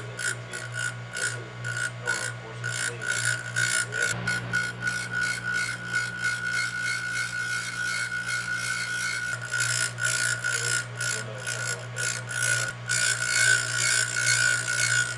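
Electric piston ring grinder running with a steady hum while the end of a piston ring is pressed against its spinning abrasive wheel. The grinding rasps in quick repeated strokes as the ring is worked back and forth across the wheel: the ring's end gap is being ground to size.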